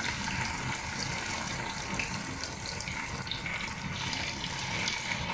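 Grated raw potato rösti sizzling steadily in a pan of hot oil.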